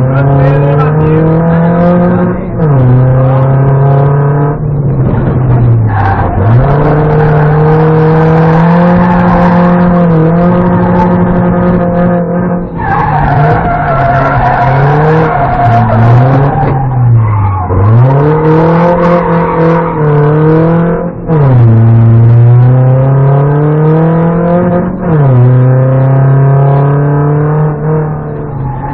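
BMW 318ti Compact rally car's four-cylinder engine heard from inside the cabin, running hard under full throttle: the pitch climbs and drops sharply at each upshift, with several quick dips and recoveries as the driver lifts and downshifts for corners.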